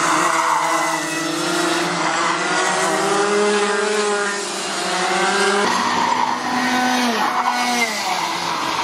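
Racing kart engines running hard on the circuit, their notes climbing as the karts accelerate and dipping as they lift for corners. A nearer kart's note falls away as it passes, about seven seconds in.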